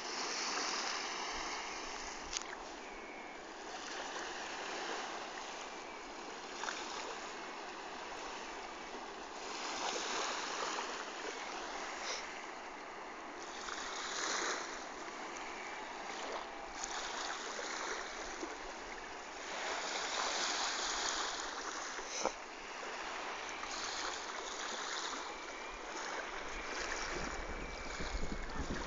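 Small waves lapping gently on a sandy shore, the wash swelling and fading every few seconds, with some wind on the microphone that picks up near the end.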